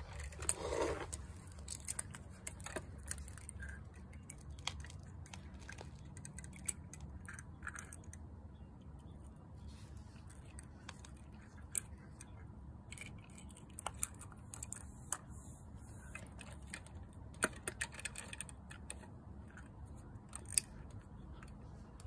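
Scattered small clicks and taps as a die-cast First Gear toy garbage truck, its yellow front-load container and little plastic toy wheelie bins are handled and set down on concrete, over a steady low background rumble.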